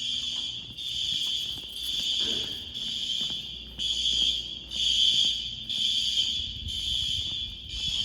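School fire alarm system sounding during a test, pulsing on and off at about one pulse a second.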